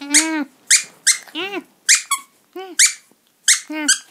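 A squeaky plush toy squeaked about six times in short high squeals, traded with a Cavalier King Charles Spaniel's short play whines that rise and fall in pitch, roughly one every second.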